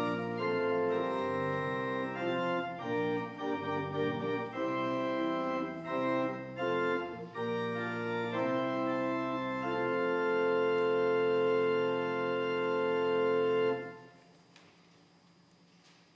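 Pipe organ playing sustained chords that change every second or so, then a long held final chord that stops about fourteen seconds in, leaving faint room tone.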